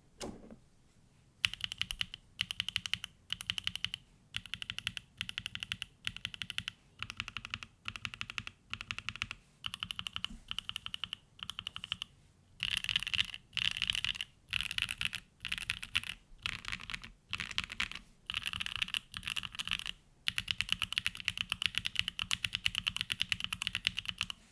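Typing on a gasket-mounted QK65 V2 mechanical keyboard with a carbon fibre plate, hand-lubed WS Aurora Polaris switches and GMK ABS keycaps: fast runs of keystrokes in short bursts with brief pauses, becoming continuous typing near the end.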